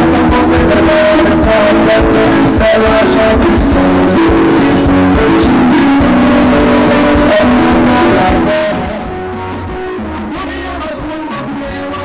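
Live band music with guitar and a singer, played loud over a steady beat. About nine seconds in it drops in level and gives way to a quieter passage of guitar music.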